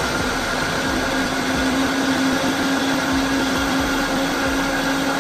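Blender running at high speed, blending frozen fruit and vegetables into a smoothie: a steady whirring with a whine that creeps slightly higher.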